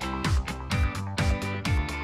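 Electronic dance-style background music with a steady kick drum, about two beats a second, and bright percussion over sustained synth tones.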